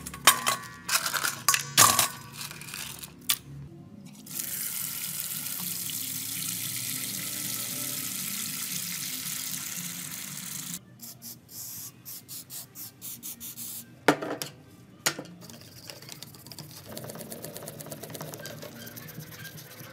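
A brush scrubbing plastic telephone housing parts in a stainless steel bowl, with sharp clacks; then, about four seconds in, a steady rush of water pouring from a hose onto the parts in the bowl for about six seconds. Next come short bursts of splashing and knocking, and near the end a toothbrush scrubbing a wet circuit board.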